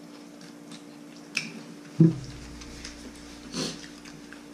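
Table sounds during a meal: a spoon clinks briefly on a ceramic dish, then about two seconds in a single heavy thump against the wooden table, the loudest sound, over a low steady hum.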